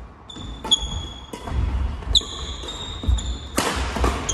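Badminton doubles rally in a sports hall: court shoes squeaking on the wooden floor in high steady squeals, sharp cracks of rackets striking the shuttlecock about a second and two seconds in, and footsteps thudding. A louder scuffing rush comes near the end as a player lunges, all ringing in the hall.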